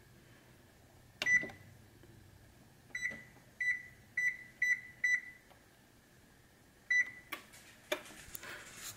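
Whirlpool oven's electronic control panel beeping as its buttons are pressed to set the bake temperature for preheating: one beep, then five quick beeps about half a second apart, then one more.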